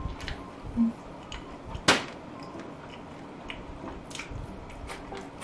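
Eating sounds of a person biting and chewing fried chicken: scattered short wet clicks and crunches, with one sharp, loud crack about two seconds in.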